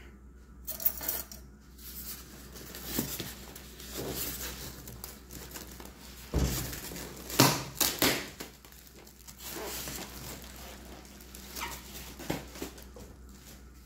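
Clear plastic bag around a countertop oven crinkling and rustling as it is gripped and pulled, in irregular bursts with the loudest crackles around the middle, and a dull bump about six seconds in.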